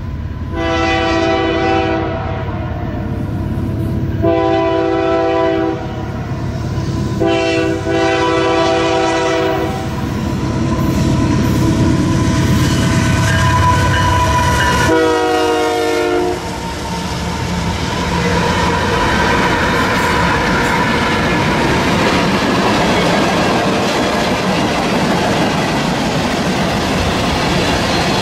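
A six-unit lash of Canadian Pacific and Kansas City Southern diesel locomotives sounds its horn in four blasts as the freight approaches. The last blast drops in pitch as the lead unit passes. The locomotives' engines rumble by, followed by the steady clickety-clack of tank-car wheels on the rails.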